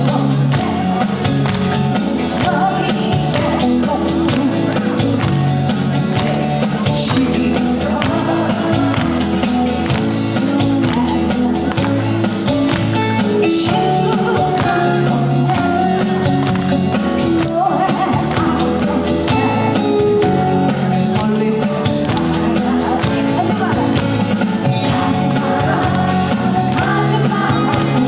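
A trot song played loud over a stage sound system, with full band accompaniment running on steadily.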